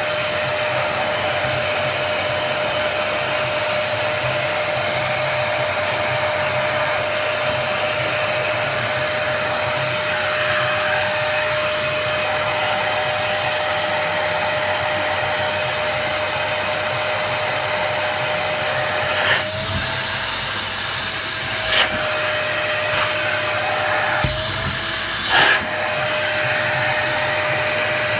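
Small electric fan motor moving air, running steadily with a constant whine over the rush. About two-thirds of the way through, and again a few seconds later, the air rushes louder and hissier for one to two seconds.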